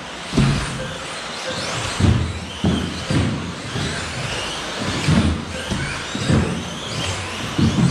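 Several 1/10-scale 2WD electric off-road RC buggies racing: their motors whine, rising and falling in pitch as they accelerate and slow, with a low thump every second or so.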